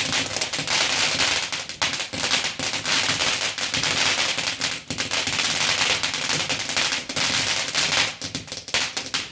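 Garden firework going off: a dense, rapid crackle of many small pops over a steady hiss, with no pause.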